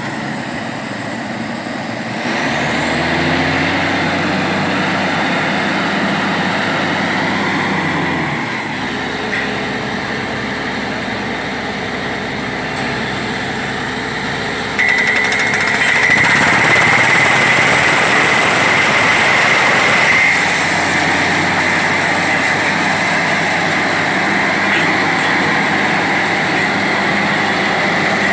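Borewell drilling rig machinery running with a steady heavy engine drone. A few seconds in it picks up, with a high whine rising and holding for several seconds. About halfway through, a loud steady high whistle joins and the noise gets louder.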